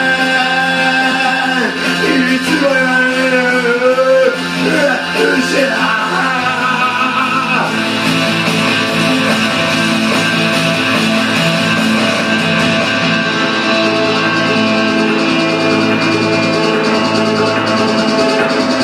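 Japanese pop-rock song with guitar: a wavering sung line over the band for the first several seconds, then the band plays on without a voice, guitar to the fore.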